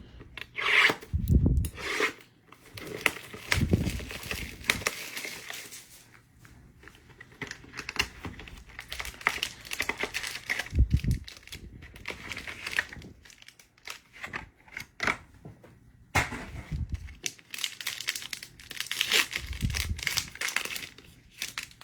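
Foil trading-card pack wrappers being torn open and crinkled, in irregular crackling bursts, with a few dull knocks from handling.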